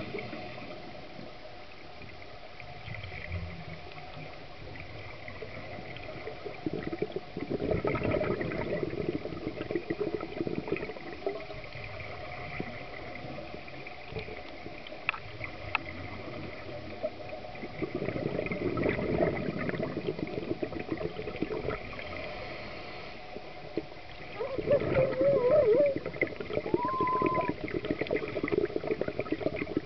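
Scuba diver's regulator breathing heard underwater: bubbly bursts of exhaled air about every ten seconds over a steady underwater hiss, the loudest a little before the end. Near the end a short wavering tone and then a brief higher one sound through the water.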